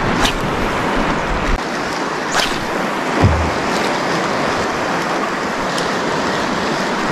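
Steady rush of wind and sea waves, with a brief swish about two and a half seconds in and a short low thump just after three seconds.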